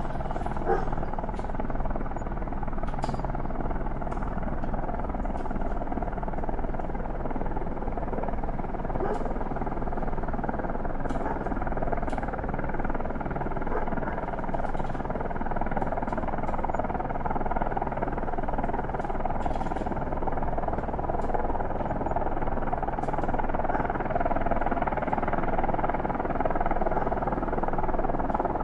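Distant helicopter hovering: a steady drone of rotor and engine noise, getting a little louder over the last few seconds.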